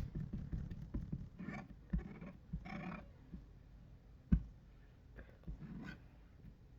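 Faint squishing and handling noises of slime being worked by hand, with one sharp knock about four seconds in.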